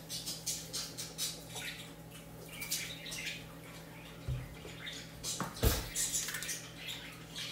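Kitchen handling noises: a whipped-cream aerosol can, cups and a soda bottle picked up and set down on a stone countertop, with scattered light clicks and rustles and two dull thumps about four and six seconds in.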